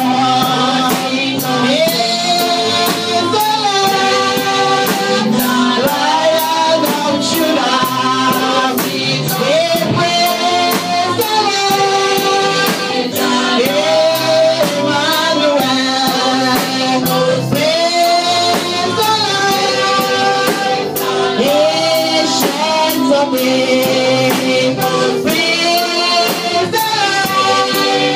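Gospel praise music at a church service: voices singing a melody over a band with a steady drum beat.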